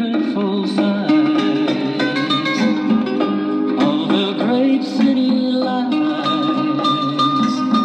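Braun PC3 portable record player playing a 45 rpm single through its built-in tube amplifier and speaker: music with guitar and singing, with little bass.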